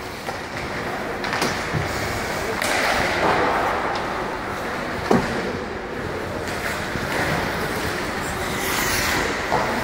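Ice hockey skates scraping and carving across the ice, with sharp clacks of sticks hitting pucks, one louder crack about five seconds in.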